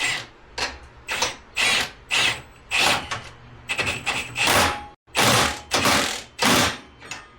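Impact wrench run in about a dozen short trigger bursts, roughly two a second, as nylock nuts are driven on slowly so that their nylon inserts do not overheat.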